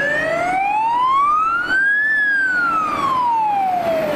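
Wailing fire-engine siren: one slow rise in pitch over about two seconds, then a fall back down over the next two.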